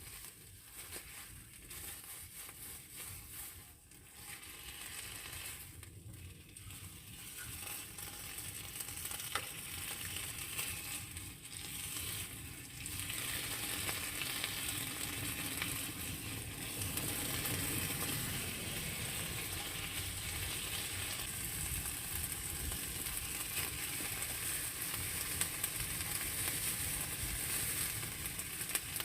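Food sizzling in a pan on a portable camping stove. It starts faint and grows louder over the first dozen seconds or so as the pan heats, then sizzles steadily.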